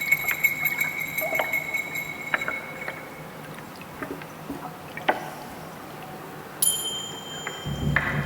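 A struck chime rings with a high tone that fades away over the first few seconds, followed by scattered soft clicks and taps. A second, higher chime is struck suddenly near the end.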